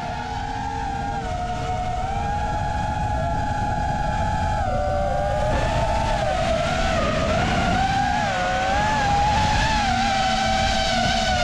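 FPV racing drone's motors and propellers whining, the pitch wavering up and down with the throttle and growing steadily louder.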